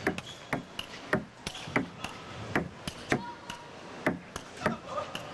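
Table tennis rally: the 38 mm celluloid ball clicking off the bats and the table in a quick, regular back-and-forth, about two hits a second.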